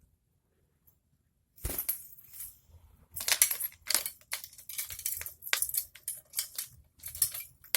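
Lory bathing in a water dish: irregular splashing and clattering against the dish, starting about a second and a half in.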